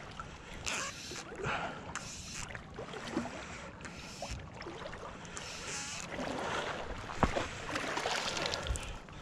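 Water sloshing and splashing around a wader's legs in a shallow stream, in uneven bursts. A sharp click comes about seven seconds in.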